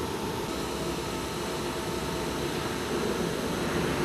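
A 1000-litre container mixer running as it turns its bin: a steady mechanical whir with a hiss.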